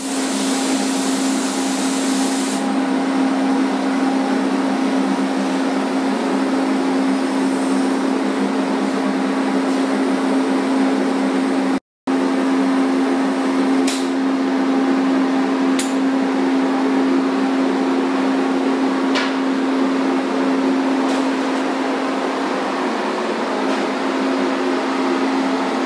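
Paint spray booth's ventilation running with a steady droning hum. For the first two seconds or so, a spray gun's compressed-air hiss rides over it. The sound drops out for an instant about twelve seconds in.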